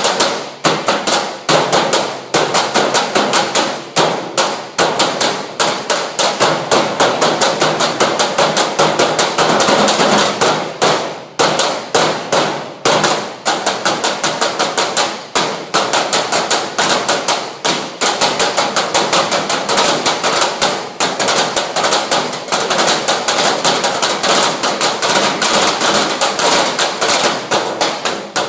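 Drums played in fast, continuous strokes, many hits a second, with short breaks every few seconds.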